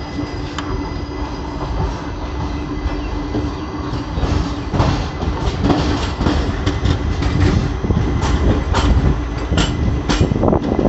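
Indian Railways express train running on the rails as it pulls out of a station. The wheels clack over rail joints and points above a steady rumble, and the clacks come more often from about four seconds in.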